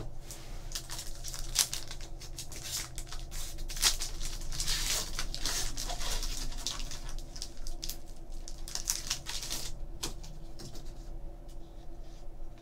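Trading card packs and cards being handled: wrappers crinkling and tearing and cards shuffled and slid against one another, making irregular rustles and light clicks, busiest about four and eight seconds in. A faint steady hum lies underneath.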